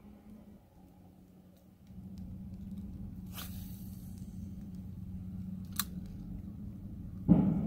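Spinning rod and reel being fished: a brief swish about three and a half seconds in as the rod is swung for a cast, a sharp click near six seconds, and a loud knock near the end, over a steady low hum.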